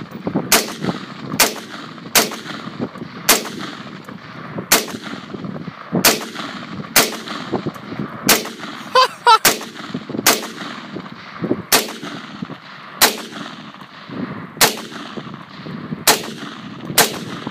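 Bushmaster Carbon 15 AR-15 rifle in 5.56/.223 firing single shots at an unhurried pace, about one a second, each with a short echo.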